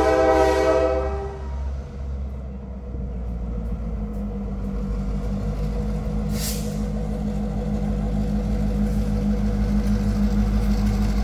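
Norfolk Southern diesel locomotive approaching: a short horn blast at the start, then a steady low engine rumble and drone that grows louder as the locomotive comes nearer, with a brief hiss about six seconds in.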